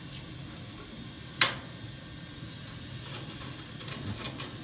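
Rusted sheet metal being peeled back with hand tools: one sharp click about a second and a half in, then a run of small scraping clicks near the end.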